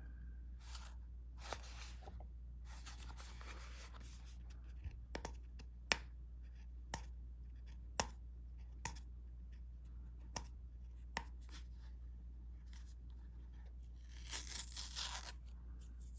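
Handling of a pocket knife and its box: a few stretches of rustling and scattered sharp clicks, over a steady low hum.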